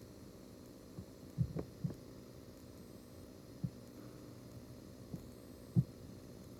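Several soft, dull knocks and bumps from handling the soldering iron and circuit board on the workbench while a fuse holder is soldered, over a faint steady hum.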